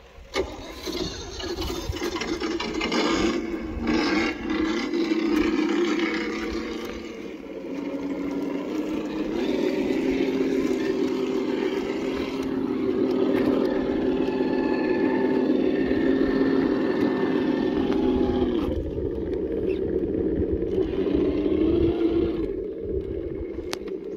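Electric motor and drivetrain of a Traxxas TRX-4 RC crawler whining as it crawls over rock. The pitch holds steady for long stretches and shifts a couple of times with the throttle.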